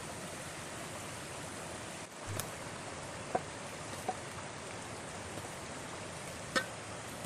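Steady rushing of a forest stream, with a few sharp knocks of a wooden spoon against a steel mixing bowl as grated potato batter is stirred. The loudest knock comes about six and a half seconds in.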